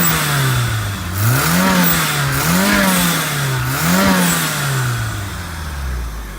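Toyota MR2's turbocharged four-cylinder engine, still warming up, revved in three quick blips that each rise and fall back, then settling to idle near the end. The exhaust runs without the clacking of a leak, after the manifold gasket and studs were redone.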